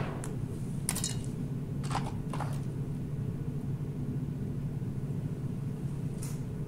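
A steady low hum, with a few short clicks and rustles from a micropipette being handled as it doses tubes: two pairs of clicks about one and two seconds in, and one more near the end.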